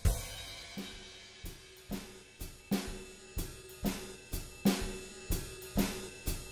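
Background music: a slow drum-kit beat with cymbal and snare hits, about two strikes a second, over faint held tones.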